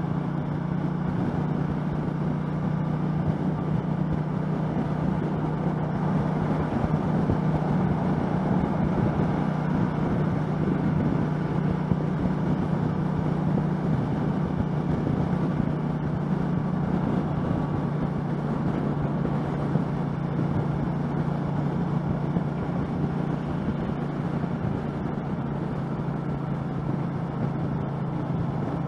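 2013 Triumph America's 865cc parallel-twin engine cruising at steady freeway speed, a constant low drone with little change in engine speed, mixed with steady wind and road noise.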